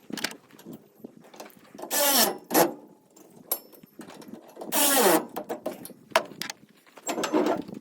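A small power tool motor, such as a cordless drill/driver, runs in short trigger bursts whose pitch rises and falls, about four times, mixed with clatter of metal parts during assembly.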